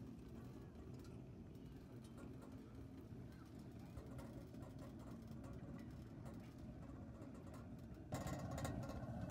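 Steady low rumble of a pellet-fired double-oven rocket stove burning at full heat, with a faint steady hum. About a second before the end it suddenly gets louder and fuller.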